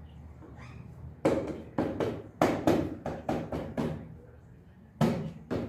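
A run of sharp knocks, about eight in under three seconds, a pause, then more starting near the end, as the kick-start side cover of a 50 cc scooter engine is tapped into place over its gasket.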